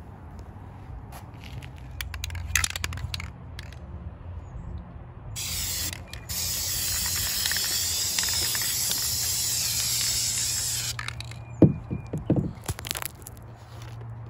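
Aerosol spray-paint can hissing in one continuous spray of about five seconds, starting a little after five seconds in, as camouflage paint is sprayed over foliage stencils. Scattered clicks and a few sharp knocks come before the spray and just after it stops.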